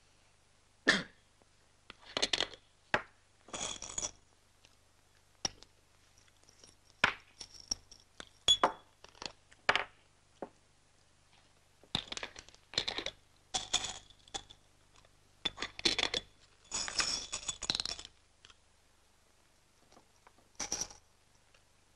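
Glass pharmacy jars of vitamin pills being handled: short clinks, clicks and rattles as jars are picked up, opened and set down on the table and pills are shaken out, in irregular bursts with pauses between.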